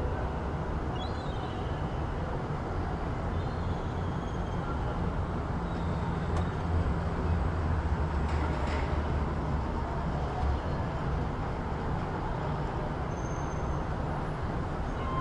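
City traffic noise: a steady low rumble of passing vehicles that swells in the middle, with a few faint high squeaks and clicks.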